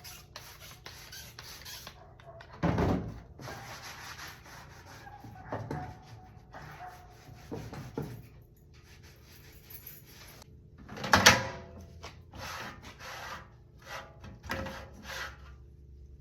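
Irregular rubbing and scrubbing strokes on an old metal toolbox as it is cleaned, with a few knocks and clunks; the loudest knock comes about 11 seconds in.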